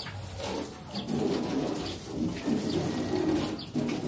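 Pigeons cooing: a string of short, low coos, about two a second.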